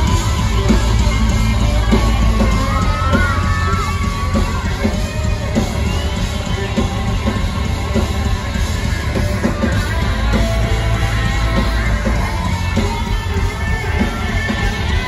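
Live rock band playing loud through a venue PA, with heavy bass and drums, guitar and a singer.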